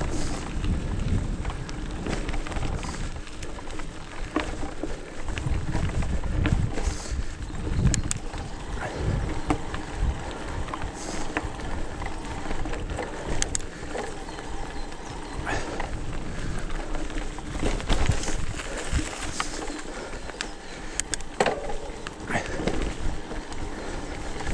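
Hardtail e-mountain bike ridden along a forest trail: wind buffeting the microphone, with tyre noise and irregular clicks and rattles from the bike over bumps.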